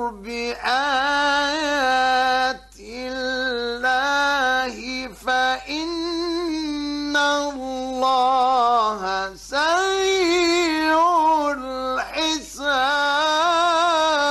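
A man's high voice reciting the Quran in a melodic, ornamented style. It holds long notes that waver and turn in pitch, in several phrases with short pauses for breath between them.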